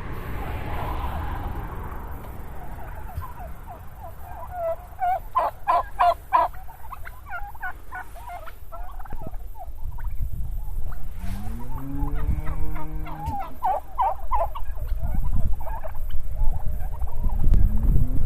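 A flock of domestic turkeys gobbling in several bouts: a fast rattling gobble about five seconds in, then more gobbling with lower pitched calls from about eleven seconds and again near the end.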